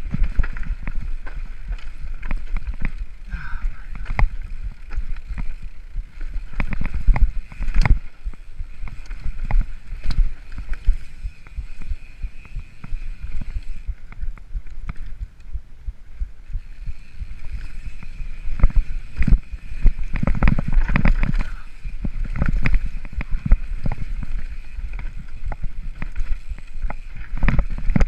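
Mountain bike descending a rocky trail: wind rumbling on the microphone, with the bike rattling and knocking over rocks and roots. A steady high buzz runs along with it and drops out briefly past the middle.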